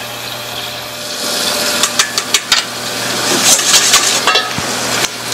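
Wire whisk clinking and scraping in a stainless-steel mixing bowl, with a cluster of sharp metal taps about two seconds in, over the steady hum of a kitchen exhaust hood.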